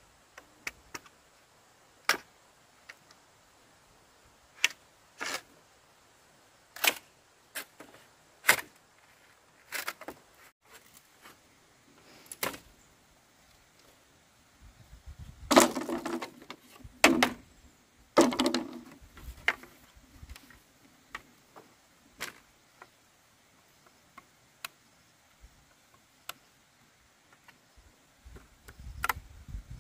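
Scattered sharp clicks and knocks, a few seconds apart, with a short run of louder clattering knocks about halfway through.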